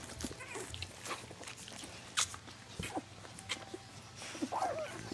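Bullmastiff dam licking her two-week-old puppies: wet licking and mouth smacks with scattered clicks, and a brief puppy squeak near the end.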